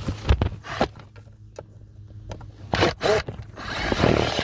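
Clicks, knocks and scrapes of hand-worked parts as the Beetle's door-mirror cap is being taken off, ending in a longer rubbing scrape that builds and stops suddenly near the end.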